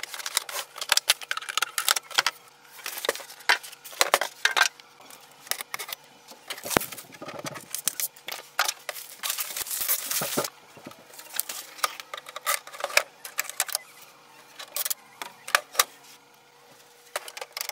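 Hand unpacking of a new inkjet printer: plastic wrap and packing material rustling and crinkling, with many sharp clicks and rattles of plastic parts. A longer stretch of rustling comes about ten seconds in.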